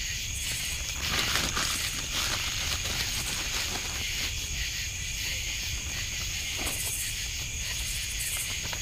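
Night insects, crickets, trilling steadily at a high pitch, with a couple of brief rustles.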